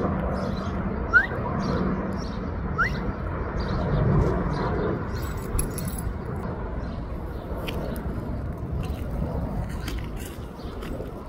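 A long-haired dog shakes its coat about five seconds in, its collar tags jingling in a quick cluster of clicks, followed by scattered clicks as it walks off on sand. Steady outdoor background noise runs underneath, with two short rising bird chirps near the start.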